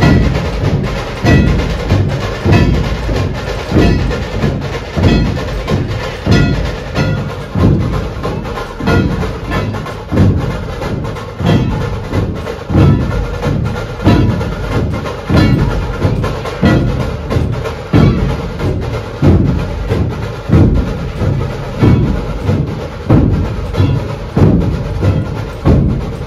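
A troupe of large dhol drums beaten together with sticks in a procession rhythm: heavy, evenly repeating beats with sharp stick clicks over them.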